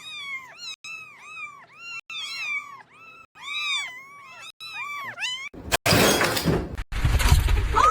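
A kitten mewing over and over, about three short high calls a second, each rising then falling. A little after five seconds a loud rough noise takes over.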